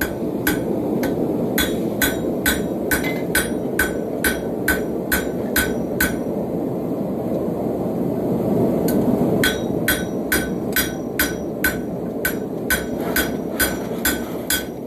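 Hand hammer striking hot steel on a Hay Budden anvil, about two to three ringing blows a second, pausing for a few seconds midway before resuming. A gas forge runs steadily underneath.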